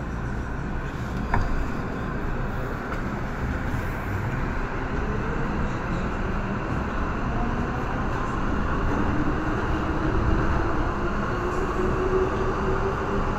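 MTR M-train electric multiple unit pulling out of a station, heard from inside the car: a low rumble with a motor whine that rises steadily in pitch as the train gathers speed. A sharp click comes about a second in.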